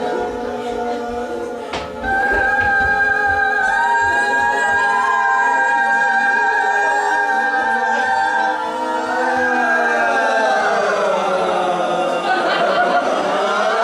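Several voices singing a cappella in long held notes, louder from about two seconds in. Near the end the pitches slide down together and then climb back up.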